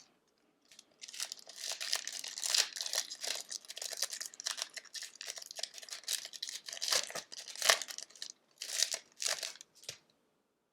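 A hockey card pack's wrapper being torn open and crinkled by hand, a stretch of crackling with sharp tearing spikes that stops near the end.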